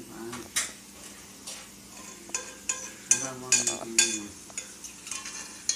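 Dishes and cutlery clinking and clattering as they are handled at a kitchen sink and an open dishwasher, in a quick irregular run of sharp clinks that is busiest in the middle. A muffled voice is heard briefly at the start and again about three seconds in.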